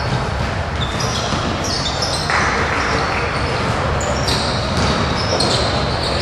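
Live youth basketball game in a gymnasium: sneakers squeak repeatedly on the hardwood, the ball bounces on the floor, and spectators and players call out over the gym's echoing background noise.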